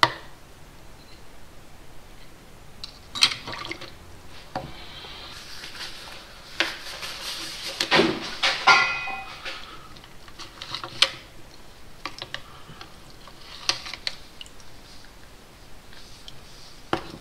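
Metal piston parts and rings clinking and knocking against a cup as they are handled and pushed down into ammonia cleaning solution, with small liquid sounds. About five to nine seconds in there is a busier stretch of rustling and quick clicks.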